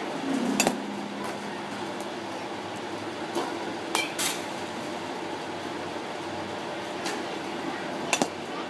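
Batting cage sounds: a bat striking pitched balls and balls hitting the cage, heard as sharp knocks and clinks a second or more apart over a steady low hum. The strongest cracks come about four seconds in and again near the end, as the young batter swings.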